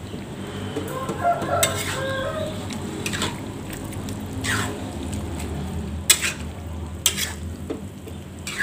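Spatula stirring banana heart in simmering coconut milk in a wok, with several sharp scrapes and knocks against the pan. Chickens cluck in the background.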